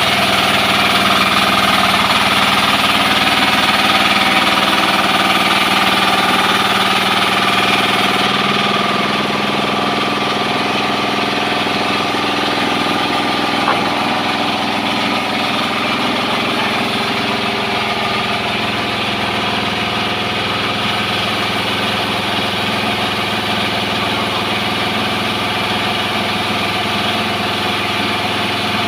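Engine of a horizontal sawmill running steadily. An extra high hiss dies away about eight seconds in, and there is a single short knock around the middle.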